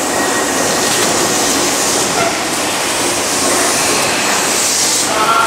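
Tobu 8000 series electric commuter train running along the platform: a steady, even rumble of wheels on the rails and running gear.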